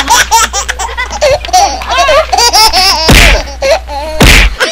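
A person laughing loudly and fast, in quick high-pitched bursts, with two short loud rushes of noise about three and four seconds in.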